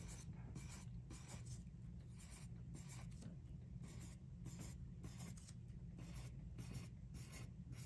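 Wooden pencil writing on paper: a quick, faint series of short scratching strokes as small zeros are drawn one after another down a column.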